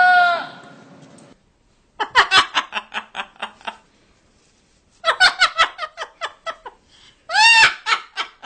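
A drawn-out bleat-like call ending just after the start, then two bursts of rapid, pulsing laughter separated by a short quiet gap. Near the end comes another short call followed by more laughing.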